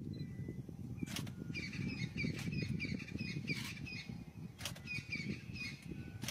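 Low, steady rumble of a safari vehicle's engine running. Over it a bird calls in quick runs of short chirps, several a second, from about a second and a half in and again near the end, with a couple of faint clicks.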